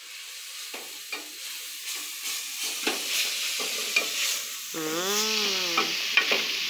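Sofrito of onion and spices sizzling in a hot frying pan as it is stirred, with scrapes and taps of the utensil against the pan. The sizzle grows louder across the stretch.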